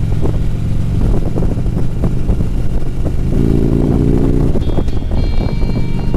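Harley-Davidson Road Glide's V-twin engine running steadily while the motorcycle is ridden on the road.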